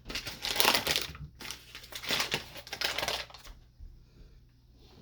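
Crinkling and crumpling of packaging as a package of thawed ground venison is handled, dense and irregular for about three seconds, then dying down to faint rustles.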